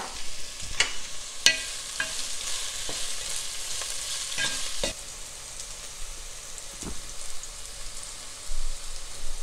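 Sliced red onions sizzling in hot oil in a granite-coated pot as they fry toward brown. A wooden spatula stirs them, knocking against the pan several times, mostly in the first five seconds.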